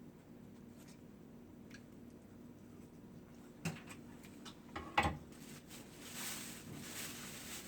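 Close-up eating sounds: two light utensil clacks near the middle, then chewing from about six seconds in, over a steady low hum.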